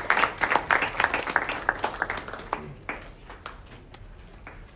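Audience applauding: dense hand-clapping that thins out and dies away about three seconds in.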